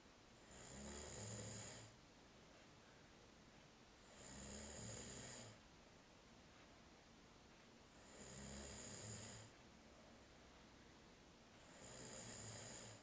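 Faint, regular snoring: four snores of about a second and a half each, one roughly every four seconds.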